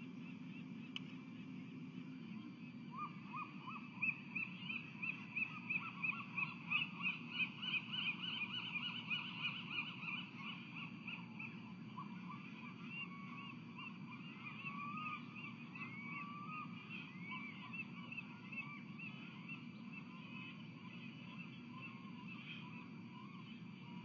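Osprey calling: a series of short, high chirps about two a second, loudest for several seconds, then thinning to scattered single calls, over a steady low hum.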